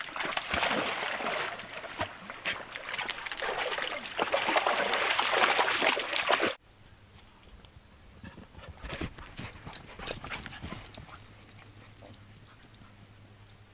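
A dog lapping water in a quick, splashy run of laps that stops abruptly about six and a half seconds in, leaving only faint scattered ticks.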